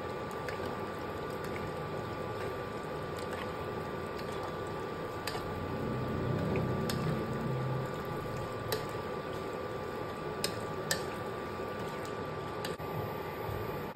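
Thick tomato sauce being stirred in a pan, with wet squelching and a few light clicks of the utensil, over a steady fan hum.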